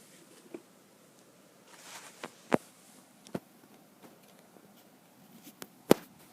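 A few irregular sharp taps and knocks against a quiet background, the loudest just before the end.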